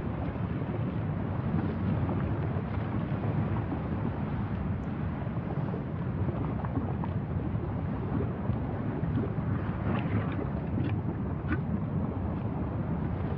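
Steady low rumble of wind buffeting the microphone, with a few faint short sounds about ten seconds in.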